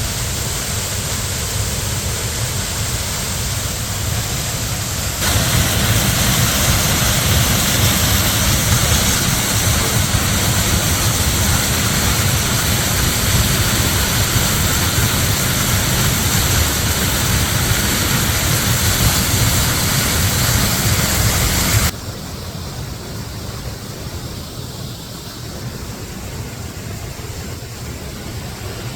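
Waterfall and creek water rushing in a steady, even roar. It gets abruptly louder and brighter about five seconds in, then drops back to a softer rush about three-quarters of the way through.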